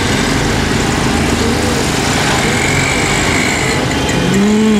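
A motor vehicle engine running steadily, with faint voices or cooing growing a little louder near the end.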